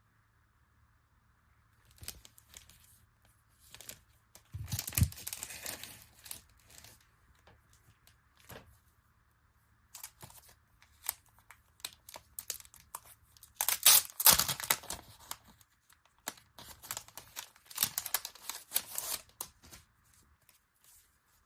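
Packaging being torn open and crinkled by hand in several bouts, the loudest about two-thirds of the way through.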